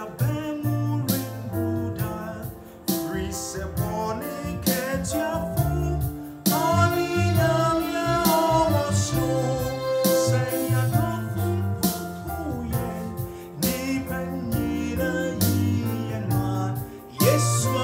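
A man singing a Twi gospel song over electronic keyboard accompaniment with a steady drum beat.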